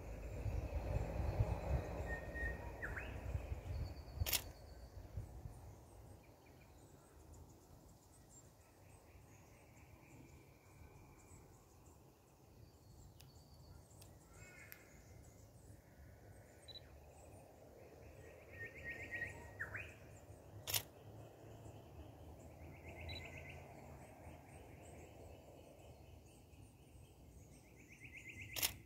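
Camera shutter clicking three times: about four seconds in, near the middle and just before the end. Between them come short trilled bird calls, with a low rumble in the first few seconds.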